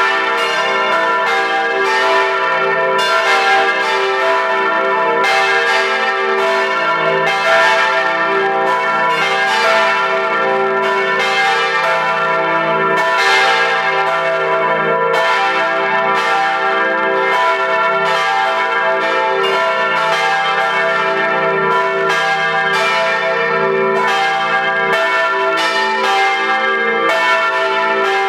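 Full peal of four swinging bronze church bells, cast by Rincker in 1953 and tuned e' g' a' c'', on straight yokes. Their clappers strike again and again in an irregular overlapping sequence, loud and close with the tones ringing on under each new stroke.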